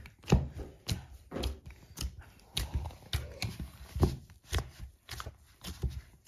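Hands kneading a dough of wheat flour and semolina with ghee and milk in a ceramic bowl, a dull thud with each press, about two a second.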